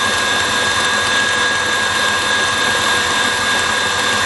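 KitchenAid stand mixer running at high speed, its wire whisk beating thickening marshmallow mixture in the stainless steel bowl. A steady motor whine with a constant high tone, unchanging throughout.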